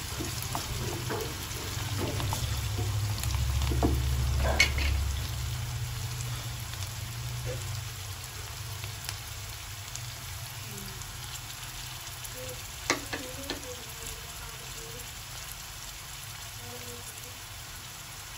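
Thinly sliced onions sizzling in hot oil in a non-stick pot, stirred with a wooden spatula at first, with a few sharp knocks about four to five seconds in and again near thirteen seconds. The sizzle slowly grows quieter as the onions soften.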